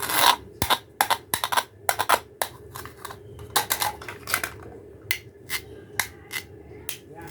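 Hard plastic toy pieces clicking and tapping against each other as they are handled, an irregular string of sharp clicks about two a second.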